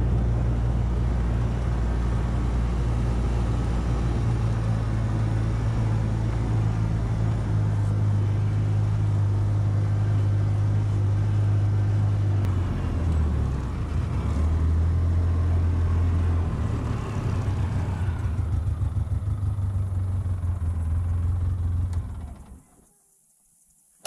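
Vehicle engine running steadily as it drives across a field. Its pitch drops for a few seconds about halfway through, then rises again, and the sound stops shortly before the end.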